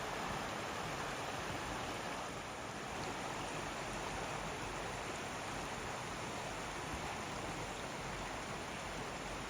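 Steady rushing of falling water from Salmon River Falls, a 110-foot waterfall.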